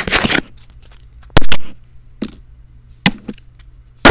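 Handling noise from hands bumping and rubbing the recording device close to its microphone: rustling at the start, a loud knock about a second and a half in, then a few lighter clicks and a loud knock at the very end.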